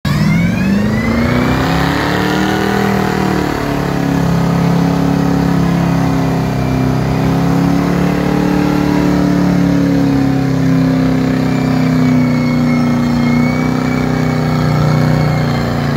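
A hot rod's engine revved up and held at high revs through a burnout, its rear tires spinning against the pavement. The pitch climbs over the first two or three seconds, then stays high and nearly steady with a slight waver.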